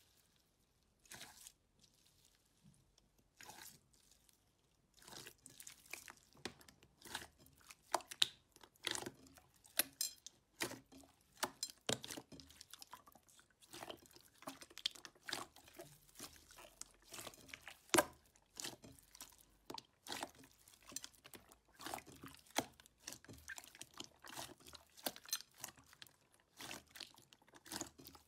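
Clear purple slime packed with small clear beads being squeezed and kneaded by hand: irregular crunching, popping crackles, a few at first and then rapid and continuous from about five seconds in.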